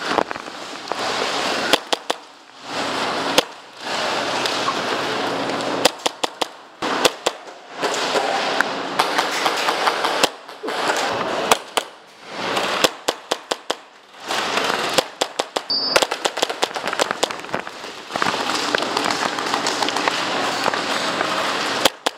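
Airsoft gunfire: sharp pops in quick strings, many close together, alternating with stretches of steady noise.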